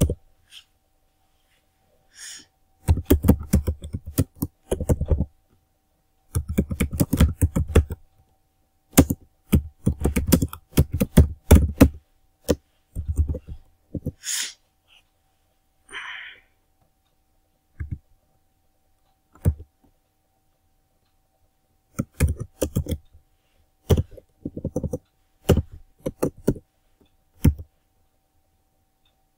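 Typing on a computer keyboard close to the microphone. There are quick runs of keystrokes in the first half, then slower, scattered single key presses.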